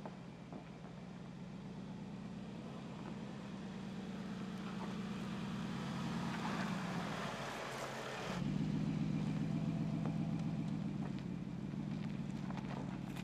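Mercedes-Benz G 500's 4.0-litre biturbo V8 running steadily at low revs as the SUV crawls over sandy ruts, with rough tyre-on-sand noise swelling midway and cutting off abruptly about eight seconds in, where the engine becomes louder. A few light crunches of grit near the end.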